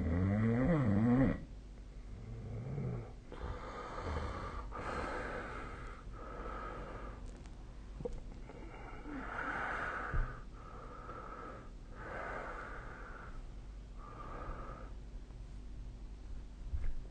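A sleeping person snoring. One loud, rattling snore comes right at the start and a fainter low snore follows about two seconds in. After that comes a string of about seven noisy, wheezy breaths, each about a second long with short gaps between them.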